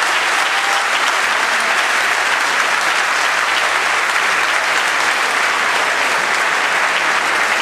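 Crowd applauding, steady and unbroken.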